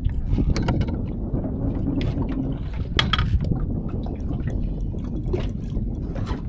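Small waves lapping and slapping against the side of a small fishing boat on choppy open water, with wind rumbling on the microphone. Scattered sharp slaps or knocks come through, the loudest about three seconds in.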